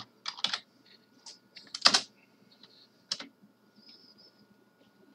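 Keystrokes on a computer keyboard: a quick run of clicks at the start, the loudest single keystroke about two seconds in, then a few sparse clicks. A faint steady high hum sits underneath.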